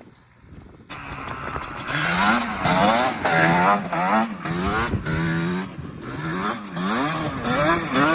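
Two-stroke ATV engine revving up and down over and over, its pitch rising and falling with the throttle, after about a second of near quiet at the start.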